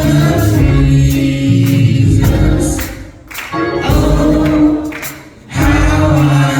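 A choir singing a gospel song in long held notes, breaking off briefly twice, about three seconds in and again near five and a half seconds.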